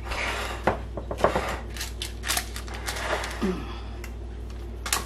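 A metal spoon pressing and scraping a crumbly granola mixture down into a parchment-lined glass baking dish, with parchment paper crinkling: a run of irregular scrapes and clicks.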